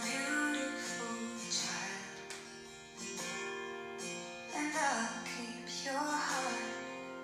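Music: a slow song with plucked acoustic guitar and a singing voice that comes in about halfway through.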